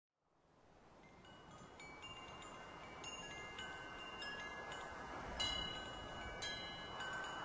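Tubular wind chime ringing, its tubes struck at irregular moments so that several ringing notes overlap, over a soft steady hiss. It fades in from silence over the first two seconds, with two sharper strikes a little past five and six seconds in.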